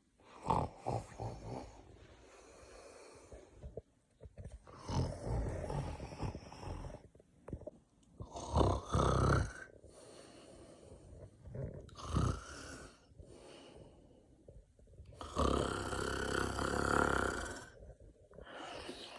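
A man snoring in about six uneven bursts, some short and sharp, the longest drawn out for more than two seconds.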